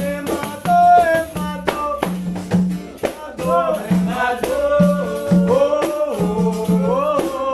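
Acoustic guitar (violão) strummed in a steady rhythm to accompany a capoeira song, with a rattling percussion sound over it. From about three and a half seconds in, a voice sings a held, sliding melody line without clear words.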